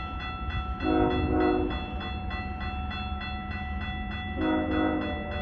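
Approaching train sounding its air horn, a chord of several notes: one blast of about a second, a second in, and another starting near the end, over a steady low rumble.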